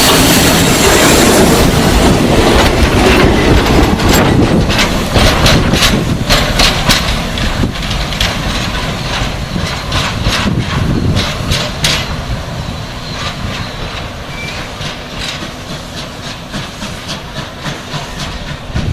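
Train of wagons behind a South African Railways Class 24 steam locomotive rolling past, steel wheels clacking over rail joints. The sound fades steadily as it draws away.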